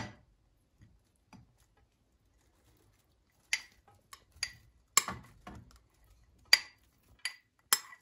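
A spoon clinking and tapping against a bowl as salad ingredients are spooned in: sharp knocks at uneven intervals, a couple faint ones early and about seven louder ones in the second half.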